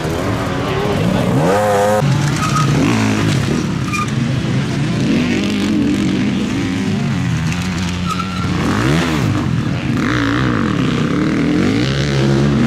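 Enduro dirt-bike engines revving hard, the pitch climbing and dropping over and over as the riders work the throttle and gears.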